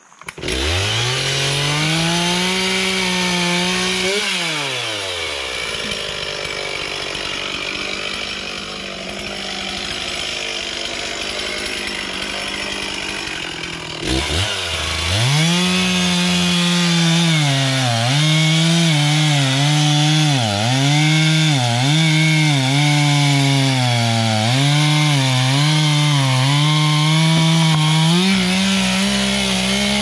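Gas chainsaw revving up and cutting hard maple. It drops back to idle about four seconds in, then revs up again about halfway through and runs at high throttle, its pitch dipping repeatedly as the chain bogs under load in the cut.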